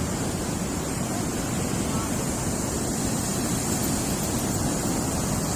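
Ocean surf washing steadily onto a sand beach, with wind buffeting the microphone.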